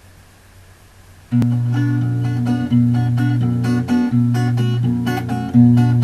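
Faint hiss, then about a second in an acoustic guitar comes in with strummed chords, playing the intro to a song.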